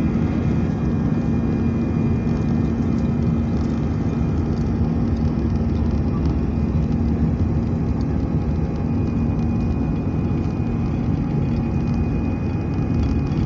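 Airbus A319 cabin noise: a steady low rumble of the aircraft and its engines running, with a steady hum.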